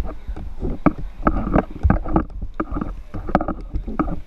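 Handling noise of a GoPro camera in its waterproof housing as it is carried: a steady low rumble with irregular knocks and rubbing from the housing.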